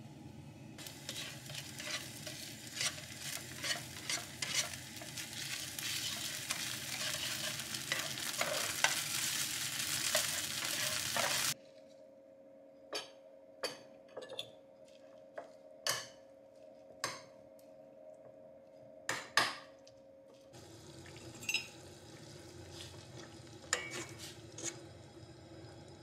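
Food sizzling in a frying pan, with a utensil stirring and clicking against the pan. About halfway through, the sizzle cuts off and a string of separate utensil taps and knocks follows over a faint steady hum. Near the end, sizzling with clicks starts again.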